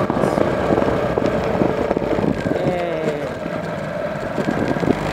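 Motorcycle engine running under way, with wind buffeting the microphone; the engine note drops a little about halfway through as the throttle eases off.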